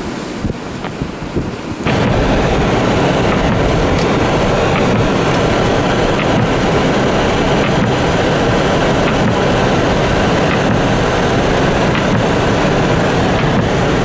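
Blizzard wind blasting the microphone: gusty buffeting for the first two seconds, then a sudden jump to a constant, loud rushing roar.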